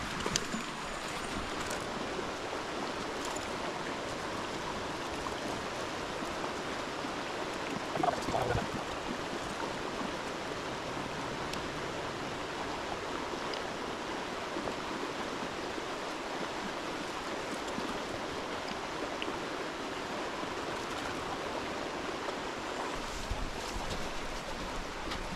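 Shallow woodland creek flowing with a steady rushing sound, and one brief louder sound about eight seconds in.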